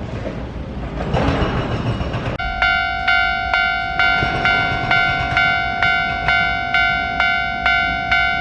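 Railway level-crossing warning bell starting up about two and a half seconds in, then striking steadily about twice a second with a ringing electronic tone. Before it, a broad rumbling noise.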